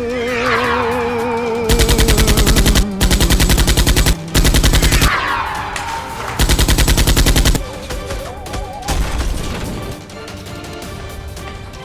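Rapid automatic gunfire sound effect in four bursts of about a second each, about ten shots a second, over background music with wavering held tones. Two falling whistle-like glides come before the bursts and between them.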